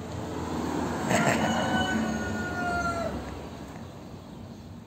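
A vehicle passing, with a high squeal held for about two seconds that sinks slightly in pitch as the rumble swells and fades.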